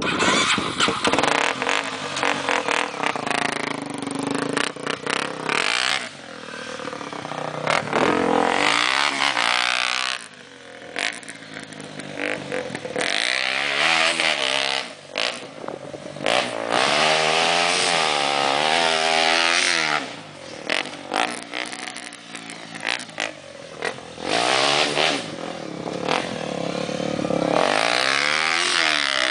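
Honda Tornado's single-cylinder four-stroke engine being revved hard over and over, the pitch climbing and falling back, with short spells of lower running between the runs. It revs out with no rev-limiter cut-out, as the engine test intends.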